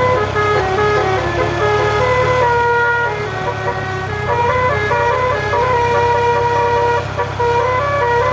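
Indonesian bus 'telolet' horn playing a tune of held chords that step to new pitches every fraction of a second, over the steady low hum of the bus's engine.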